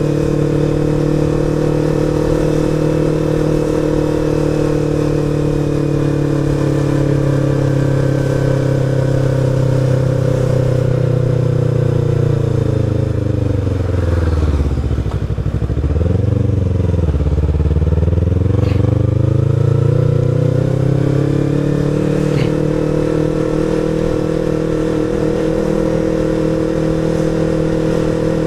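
Sport motorcycle engine running steadily while riding. About halfway, its pitch falls over a few seconds as the bike slows, then climbs back up as it speeds up again.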